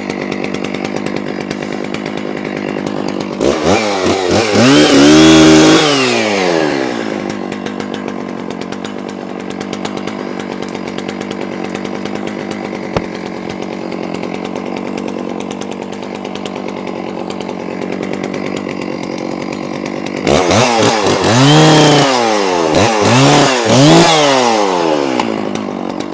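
Stihl two-stroke chainsaw running at idle, revved up and back down about four seconds in and again for several seconds near the end.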